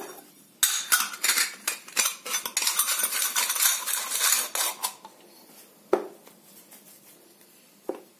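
Metal parts of an aluminium chakli press knocking and clinking together as it is handled and its shaping disc is fitted: a busy clatter of quick metal clicks for about four seconds, then two single knocks.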